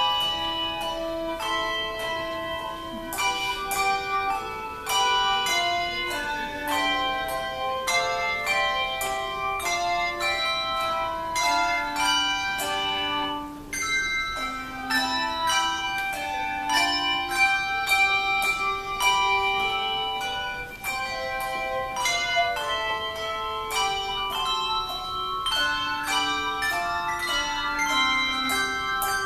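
Handbell ensemble playing a piece: melody and chords of struck handbells, each note ringing on, over lower bass bells. The playing thins briefly twice, about halfway through and again a little later.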